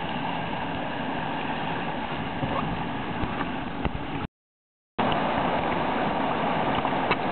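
Steady rushing of whitewater rapids. The sound cuts out for under a second just past the middle, then comes back a little louder.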